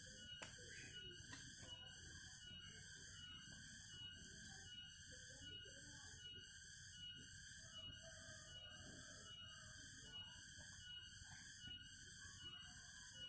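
Near silence, with a faint, even, high-pitched pulsing chirr of about one and a half pulses a second and a couple of faint clicks near the start.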